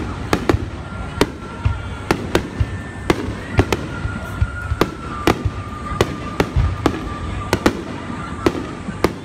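Aerial firework shells bursting in quick, irregular succession: sharp bangs and cracks, several a second, over a continuous low rumble of distant booms.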